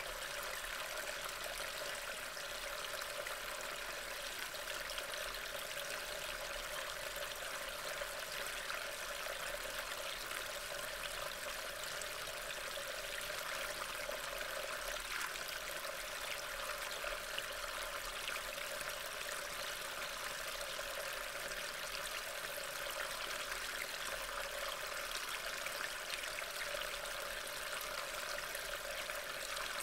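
Steady, even rushing of water, with no distinct drops, splashes or changes.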